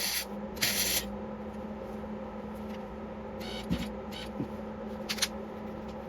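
Short bursts of welding as spot tacks are put into thin, rusty steel of a snowmobile frame: one right at the start and another just under a second in, each a harsh crackling hiss of under half a second. A few fainter clicks and pops follow over a steady hum.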